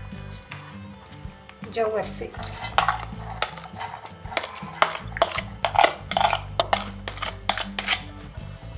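Repeated clicks and scrapes of a plastic spoon against a plastic bowl and a steel mixer-grinder jar as soaked sago pearls are spooned into the jar.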